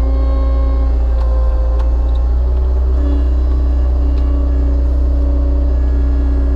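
Skid steer engine running steadily under hydraulic load as it powers a Split Fire 4208 log splitter, with a whine that changes pitch a few times and a few short clicks.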